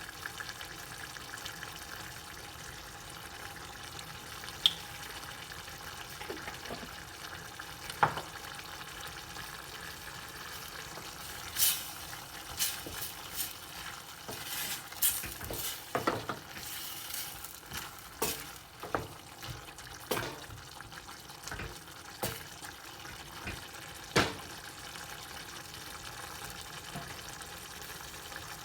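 Food sizzling steadily in a pan while it is stirred, a utensil knocking and scraping against the pan now and then, mostly through the middle of the stretch.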